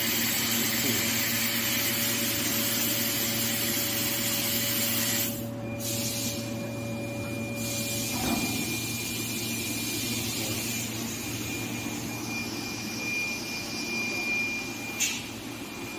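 A Bodor laser tube cutting machine cuts a square steel tube: a steady loud hiss of cutting gas over a machine hum, which stops abruptly about five seconds in. After that the machine hums more quietly with a thin steady whine, with a knock about eight seconds in and a sharp click near the end.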